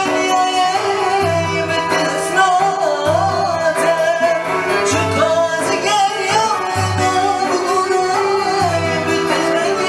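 Live music: a man singing a wavering, heavily ornamented melody through a microphone, accompanied by an electronic keyboard playing sustained chords over a bass note that repeats about every second and a half.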